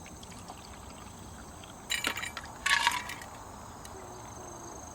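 Two short bursts of clinking, as of glass or metal tableware being handled, about two seconds and three seconds in, the second with a brief ring. A steady high insect trill runs underneath.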